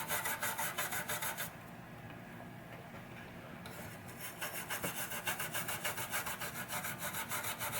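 A toothbrush wet with rubbing alcohol scrubbing a pinball power supply circuit board in fast back-and-forth strokes, about six a second, to clean off old crusted solder residue. The scrubbing stops for about two and a half seconds after the first second and a half, then starts again.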